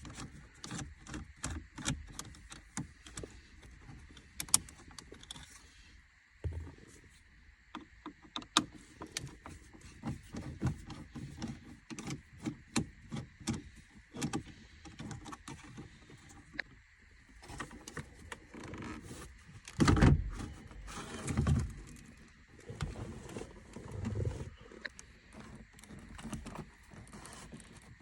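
Irregular clicks, knocks and rustling from hands working on car interior trim and parts, with a louder run of knocks about twenty seconds in.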